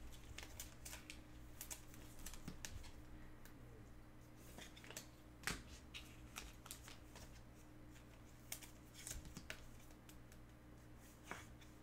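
Faint, scattered rustles and light clicks of trading cards being handled, with a few sharper clicks, over a low steady hum.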